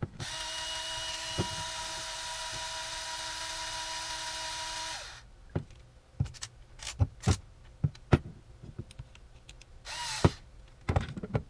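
Ryobi cordless electric screwdriver running steadily for about five seconds, driving an M5 hex bolt into a 3D-printed plastic part, then winding down. A few sharp clicks and knocks follow, and the screwdriver runs again briefly near the end.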